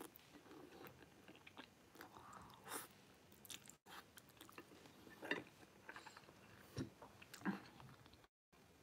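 A person chewing a mouthful of stir-fried beef noodles: faint, wet mouth sounds with a few louder smacks spread across the stretch.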